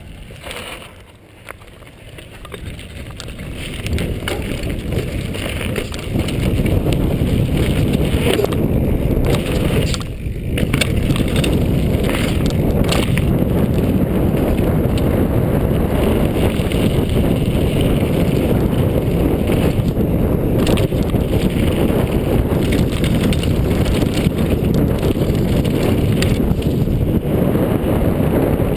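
Wind rushing over a chest-mounted camera microphone and mountain bike tyres rumbling over gravel as the bike picks up speed downhill, building over the first six seconds and then running steadily. A few knocks and rattles from the bike come about ten seconds in.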